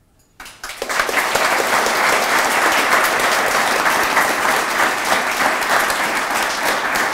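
Audience applauding, breaking out suddenly about half a second in.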